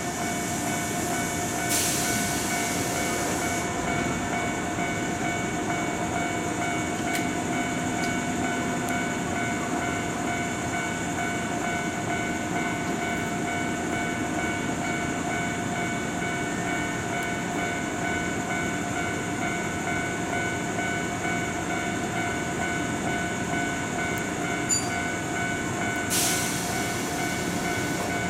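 Kintetsu electric train standing at a platform, its onboard equipment giving a steady hum with a few held tones. Two short hisses come through, about two seconds in and near the end.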